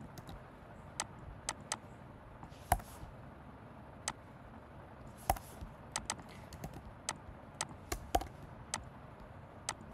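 Computer keyboard keystrokes, irregular taps and clicks, a few of them louder and sharper, as code is typed and pasted.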